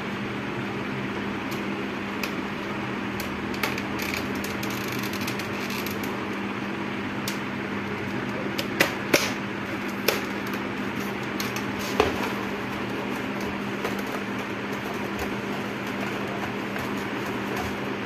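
A steady fan or air-conditioner hum fills the room, with a few sharp clicks and taps in the middle as plastic and metal parts of an LCD monitor's housing and stand bracket are handled and fitted together.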